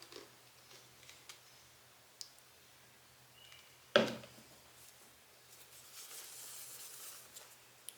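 Small lens parts handled at a workbench: scattered light clicks and taps, one sharper knock about four seconds in, then a soft rubbing hiss as the lens is wiped with tissue.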